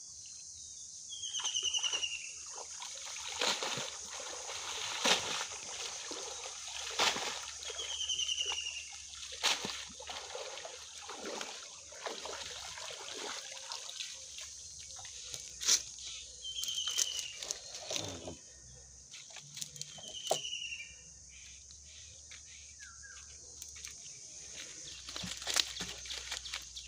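Water sloshing, splashing and dripping as a wet cast net full of fish is hauled out of a pond, in short irregular splashes.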